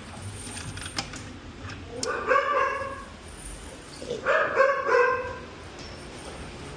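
A dog barking, two short bouts about two seconds apart.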